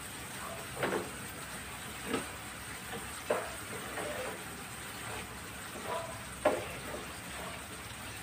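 Coconut milk cooking in a frying pan over a gas burner, with a steady hiss, while a spoon stirs it and scrapes and knocks against the pan several times, the loudest late on. The coconut milk is being cooked down until its oil separates into latik.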